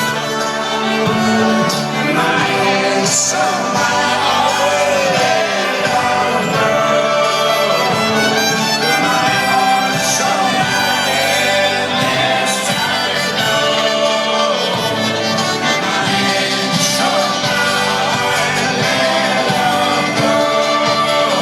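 A live folk-rock band playing loud and steady in a concert recording, a full instrumental sound with some singing over it.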